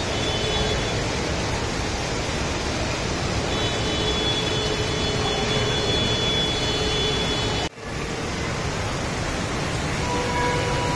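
Steady rushing noise of the flowing river and traffic under the bridge, with faint high steady tones at times. The sound cuts out for a split second about three-quarters of the way through.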